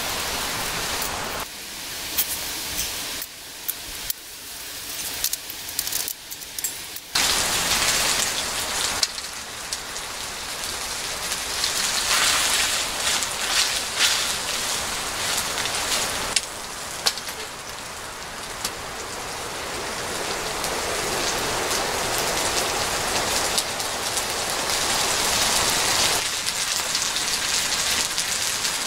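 Marinated bulgogi sizzling in a frying pan over a wood-burning Solo Stove, a dense hiss with sharp pops and spatters. The hiss is lighter for the first several seconds, then swells and stays strong.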